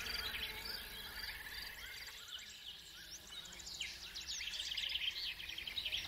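A chorus of small birds chirping and twittering: many short, quick calls overlapping. It thins out about a third of the way in and builds back up near the end.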